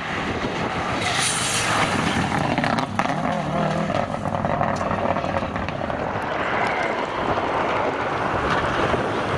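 Subaru Impreza WRX STI rally car's turbocharged flat-four engine revving hard as the car passes at speed on a tarmac stage, the pitch rising and falling through the gear changes.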